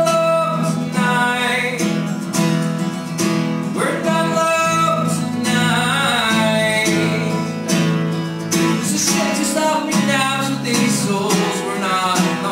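Live acoustic guitar strummed steadily, with a man singing over it.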